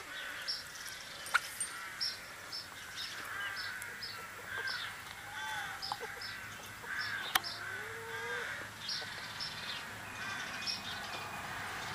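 Brown hens calling, a run of short calls one or two a second with a lower drawn-out call past the middle, and two sharp clicks.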